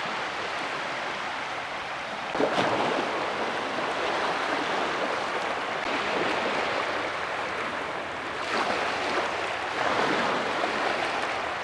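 Sea waves washing in, swelling and easing several times.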